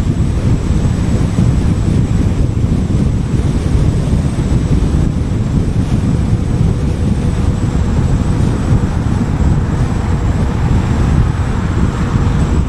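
Steady low rumble of a car driving at highway speed: tyre and road noise mixed with wind buffeting.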